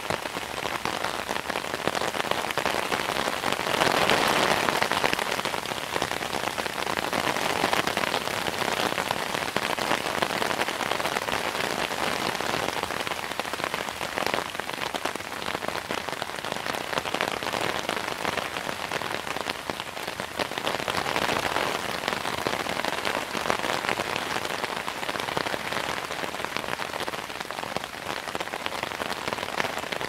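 Rain falling on an umbrella, heard from beneath it: a dense, steady stream of drop hits, swelling a little louder about four seconds in.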